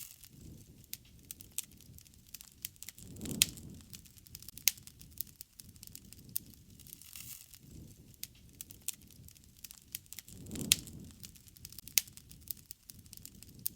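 Wood campfire crackling with irregular sharp pops, over a low rush of burning that swells twice, about three seconds in and again near the end, with the loudest pops at those swells.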